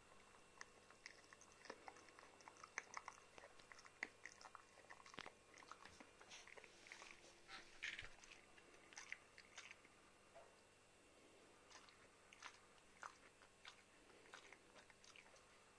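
Chow Chow gnawing a hard chew stick: faint, irregular crunching and clicking bites, busiest in the first ten seconds, with a short lull before the crunching picks up again.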